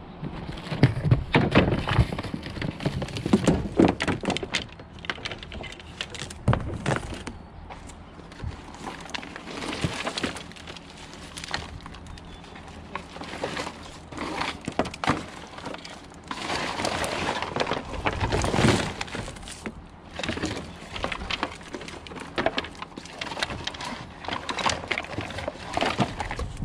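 Scrap and debris being rummaged through and shifted in a dumpster: repeated knocks, clatter and cracks, busiest in the first few seconds and again about two thirds of the way through.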